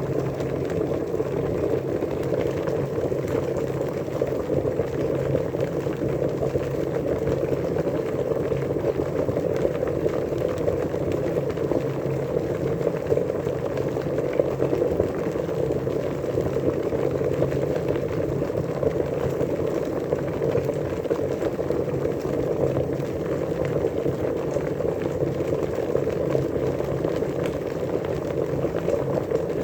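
Water boiling, a steady, dense bubbling that holds unchanged throughout, fuller in the low-middle range.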